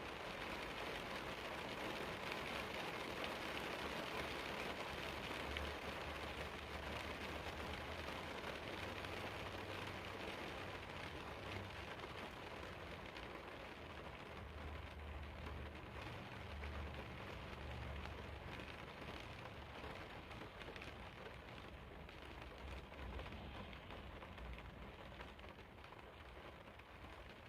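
Steady rain falling, an even hiss of drops, with a low rumble coming and going underneath; the rain eases a little toward the end.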